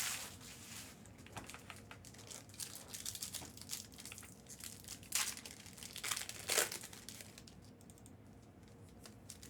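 Plastic trading-card pack wrappers and packaging crinkling as they are handled, in scattered small crackles, with a couple of louder rustling, tearing bursts about five and six and a half seconds in.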